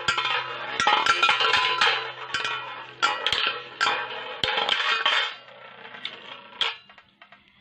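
Victory Valkyrie and Gravity Destroyer Beyblade Burst spinning tops whirring and scraping as they spin in a metal bowl stadium, with repeated sharp clacks each time they collide. The clashing stops about seven seconds in.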